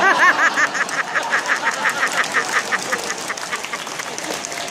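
Audience laughing and clapping, topped by one person's high, rapid cackling laugh of about six pulses a second that fades away over the first three seconds.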